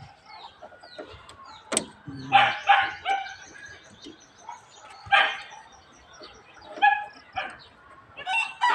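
Chickens clucking in short calls, a few at a time, with one sharp click about two seconds in; a longer call starts near the end.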